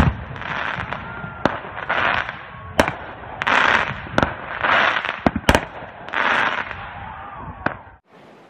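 Aerial fireworks going off: a series of sharp bangs, with a crackling hiss from the bursts' glittering stars swelling about every second and a half. The sound drops away abruptly near the end.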